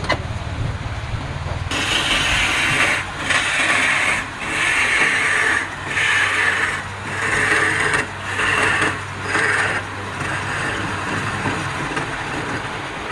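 Wood lathe running with a tool or abrasive pressed against the spinning wood in about seven scraping passes of a second or so each. The contact stops about ten seconds in and only a quieter steady running sound is left.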